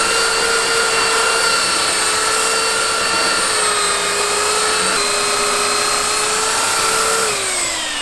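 Electric belt sander running steadily with a high motor whine, then switched off about seven seconds in, its pitch falling as it winds down.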